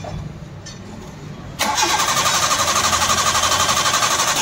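Old-model Maruti Suzuki Wagon R's 16-valve petrol engine being cranked by the starter motor, starting about one and a half seconds in with an even, rapid rhythm and stopping abruptly near the end. It turns over briskly on a strong battery but does not fire or catch.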